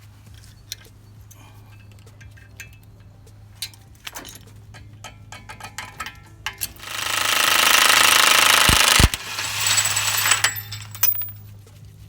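Small metallic clicks and taps of hand work on a car's front hub, then an impact wrench hammering loudly for about two seconds, a brief stop, and another burst of about a second, followed by a few metal clinks.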